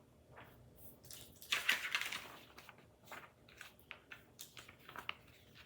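Printed overlay cards being handled and shuffled: a brief rustle of sheets sliding against each other about a second and a half in, with light scattered clicks and taps.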